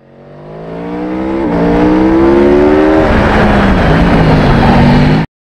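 A racing engine accelerating hard through the gears: it fades in, its pitch climbs, drops at an upshift about one and a half seconds in and again about three seconds in, then runs on rougher before cutting off abruptly near the end.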